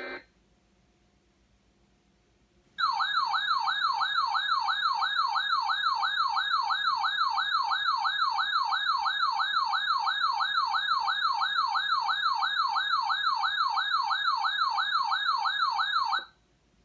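Electronic weather-alert tone warbling rapidly up and down, about three sweeps a second, marking the start of the next broadcast warning. It starts about three seconds in after a near-silent gap, runs for about 13 seconds and cuts off sharply.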